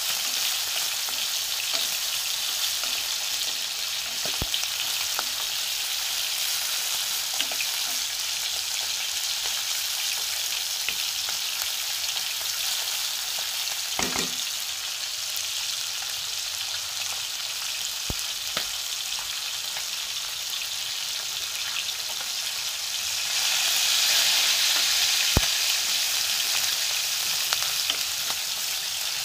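Diced onion and other aromatics sizzling in hot oil in a black pan while being stirred, with a few sharp knocks of the utensil against the pan. The sizzle grows louder about 23 seconds in.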